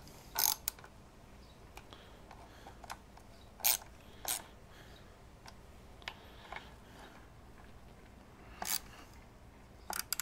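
A few sharp, separate metal clicks and taps of hand tools, a ratchet and a hex key, working the screws of a motorcycle air-filter backing plate, with quiet stretches between them.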